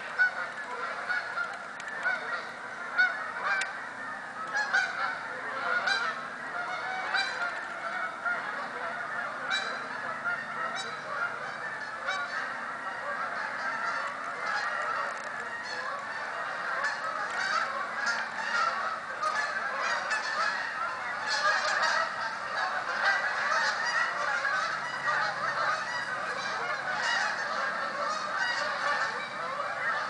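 A large flock of geese honking, many calls overlapping in a constant clamor, with louder single honks standing out in the first several seconds.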